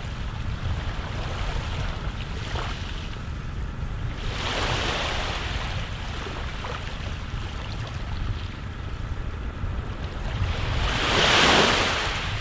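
Sea waves washing in, over a steady low wind rumble. The wash swells twice: once about four seconds in, and louder near the end.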